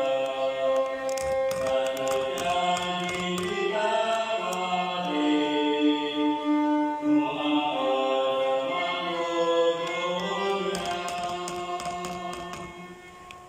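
Hymn singing with long held notes in chords, fading out near the end.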